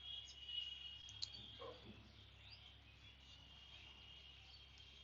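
Near silence: faint background chirping with a steady high trill, over a low hum.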